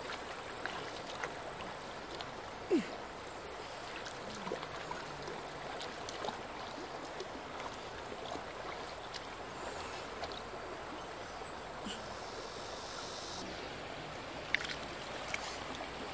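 Shallow river flowing over stones: a steady rush of water, with a few small sharp clicks and one brief falling note about three seconds in.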